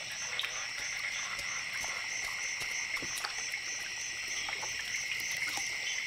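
Steady chorus of wetland insects and frogs: a constant high trill with a higher pulsing buzz that repeats several times a second, and scattered faint ticks.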